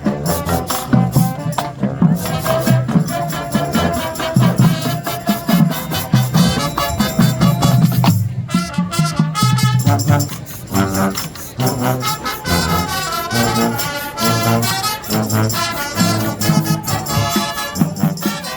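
High school marching band playing a boy-band arrangement: brass melody over drumline percussion, with steady drum hits throughout.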